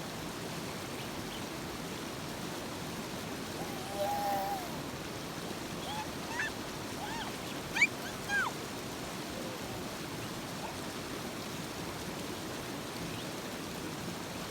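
River water rushing steadily, with a few short high calls over it, the first about four seconds in and several more midway.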